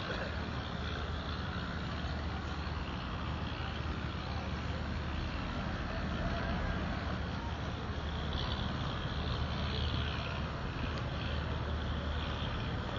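Steady low drone of a nearby boat's engine running, with a crowd talking faintly over it.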